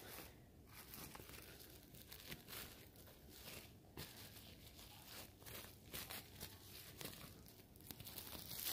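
Clear plastic packaging bag crinkling faintly as it is handled around a squishy toy, a run of soft, irregular rustles and crackles.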